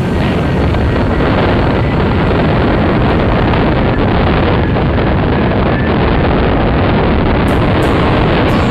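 Wind rushing over a small action camera's microphone in paraglider flight: a loud, steady buffeting roar with the airflow of a steeply banked turn.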